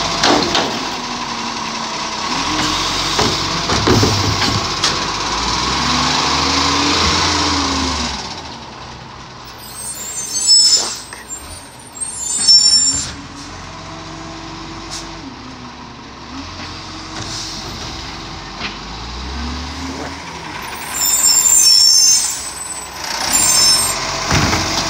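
Side-loader garbage truck working its hydraulic bin-lifting arm, the diesel engine revving up and down as the arm lifts and lowers. It then pulls away and stops again, with short sharp air-brake hisses about ten and twenty-two seconds in.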